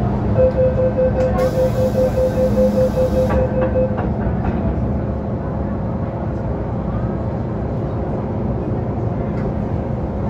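Door-closing warning on an MTR M-Train: rapid, evenly spaced beeping for about three and a half seconds, with a hiss partway through. The doors then shut with a knock, leaving the steady hum of the train cabin.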